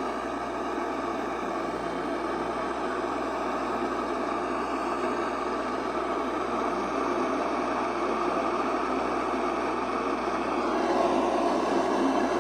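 Steady hiss of static from a weather radio receiver, with no clear signal, growing slightly louder and brighter about eleven seconds in.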